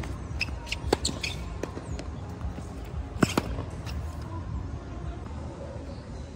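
Tennis rally: sharp racket-on-ball hits about a second in and again about three seconds in, where a second pop follows closely, with lighter clicks between them over a steady low background rumble.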